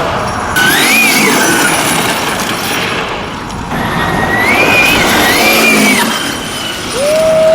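12S Rovan RC buggy's brushless electric motor whining up and down in pitch as it speeds up and slows, twice, over a steady rush of tyre and road noise.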